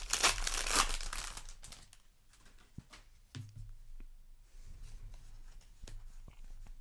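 A Magic: The Gathering booster pack wrapper being torn open and crinkled for about the first two seconds, then a few soft clicks and taps as the cards are handled.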